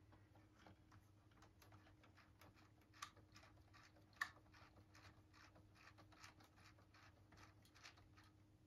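Faint, irregular clicking and ticking of plastic Lego Technic parts worked by hand as the chipper's infeed chute is folded out, with two sharper clicks about three and four seconds in.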